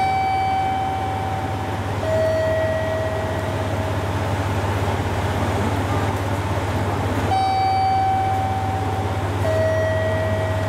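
JR Kyushu KiHa 200-series diesel railcar idling at a platform, a steady low hum. Over it a two-tone chime sounds twice, each time a higher note held a second or two followed by a lower one.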